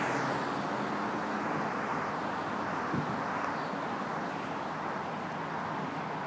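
Road traffic: a steady wash of car noise, with a low engine hum that fades away in the first second or two. A single soft knock about three seconds in.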